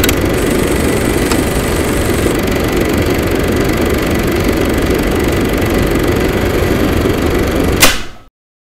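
Loud, steady rumbling noise with no clear pitch. It ends in a sharp hit just before eight seconds in and then cuts off to silence.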